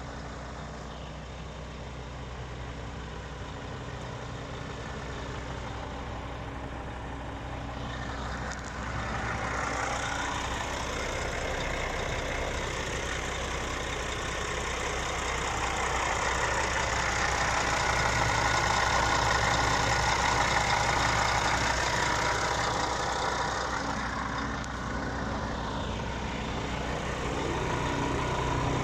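Scania R450 truck's 13-litre inline-six diesel idling steadily, with a steady low hum. It grows louder and fuller from about nine seconds in, peaking around twenty seconds, then eases back.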